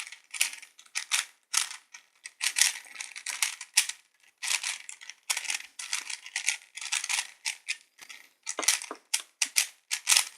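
Plastic Void Cube being turned quickly by hand during a speed solve: rapid clacking and rattling of the layers, in irregular bursts several times a second.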